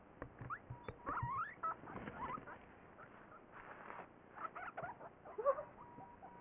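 A guinea pig giving a string of short, rising squeaks, the loudest near the end, mixed with soft rustling and scrabbling on fleece bedding as it climbs out of a fleece cuddle sack.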